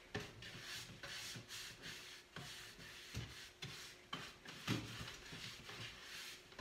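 Wax brush scrubbing paste wax into chalk-painted furniture: faint, quick, repeated bristle strokes rubbing over the painted surface.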